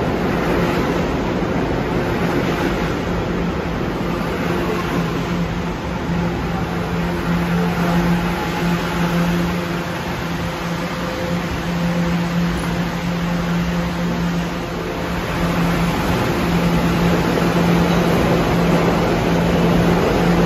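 New York City Subway R211 train running into a station platform and coming to a stop, its wheel and motor noise under a steady electrical hum. Later the noise of an R211 train standing at a platform with its doors open.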